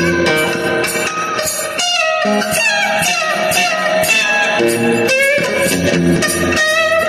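Electric guitar playing a blues lead, with sliding, bent notes over held lower notes.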